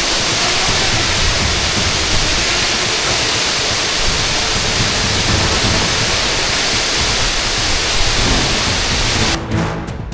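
Steady rushing roar of a waterfall, cutting off suddenly near the end.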